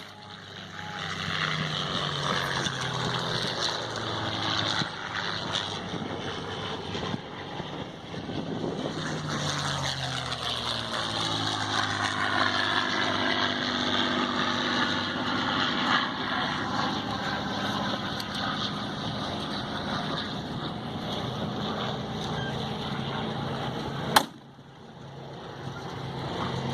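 Aircraft engine noise passing by, a steady roar whose pitch glides up and down as the aircraft moves. A sharp click comes near the end, and after it the sound is quieter.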